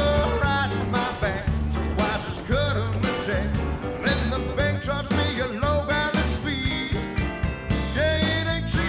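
Background music: an upbeat country-rock song with a steady beat, bass and a singing voice.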